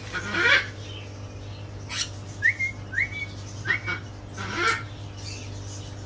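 Parrots squawking: a few harsh screeches, with short rising chirps in between.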